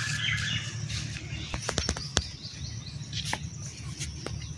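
Small birds chirping, with a few sharp taps and knocks clustered a little under two seconds in and a couple more later, over a steady low rumble.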